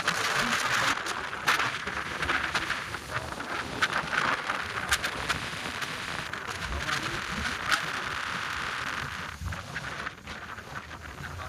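Storm rain and wind: a steady hiss with many sharp, scattered clicks, easing off near the end.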